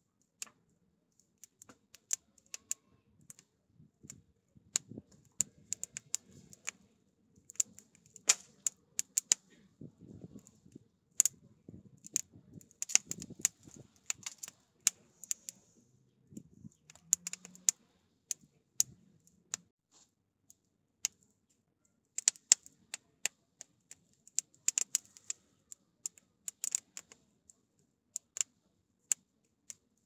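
Split firewood burning in an open hearth, crackling with irregular sharp pops and snaps, some in dense clusters and some single.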